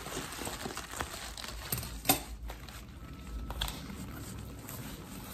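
Bubble wrap and foam packaging crinkling and rustling as they are handled, with a few sharp clicks, the loudest about two seconds in.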